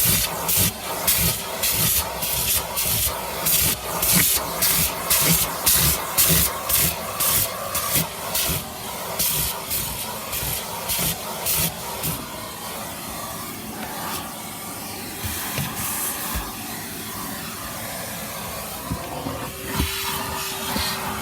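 Vacuum cleaner nozzle sucking over the car's interior in rhythmic strokes, about two hissing bursts a second; after about twelve seconds the hiss turns steadier, and near the end a steady tone comes in.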